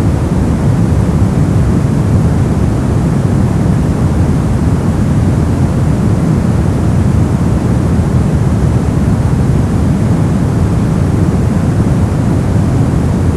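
Steady, unchanging pink noise: an even rushing hiss, heavier in the low end, with no pitch or events in it.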